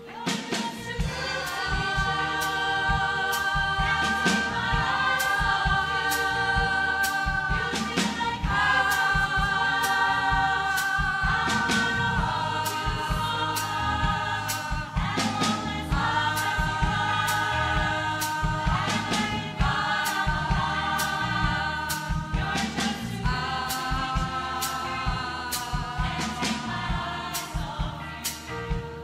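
A choir singing together in held chords, backed by a live band with electric guitars, keyboard and a steady drum beat. The choir comes in strongly at the start.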